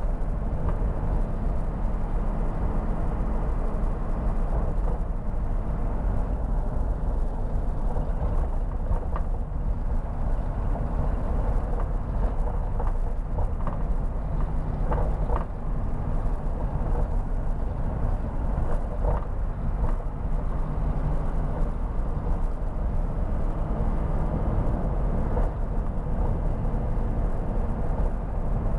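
Mercedes-Benz Atego truck's diesel engine running steadily as the truck drives along, heard inside the cab as a low, even drone over road and tyre noise.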